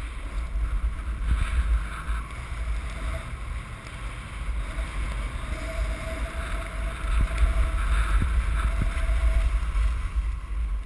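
Wind buffeting the microphone of a camera moving fast down a ski slope, a heavy low rumble, with the hiss of sliding over packed snow that swells a couple of times.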